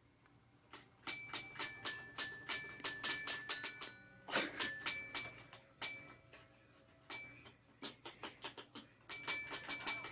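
Bright, bell-like notes from a musical toy being pawed by a cat. The notes come in irregular runs, each starting with a light tap and some ringing on. They are dense for the first few seconds, sparse in the middle, then there is a quick run again near the end.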